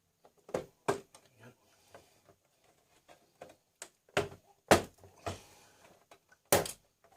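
Plastic retaining clips of a Toshiba LX830 all-in-one PC's rear cover snapping loose as the cover is pried off: about five sharp snaps, the loudest near the middle and near the end, with quieter plastic ticks and scraping between.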